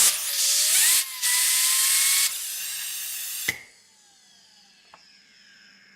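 Small 12 V fan from an IBM System x3550 server power supply spun up by blasts of compressed air from an air nozzle: loud hiss of the air with a whine that rises in pitch and holds, then after the air cuts off with a click the fan coasts down with a faint whine falling in pitch. The bearing still sounds bad: it is dried out.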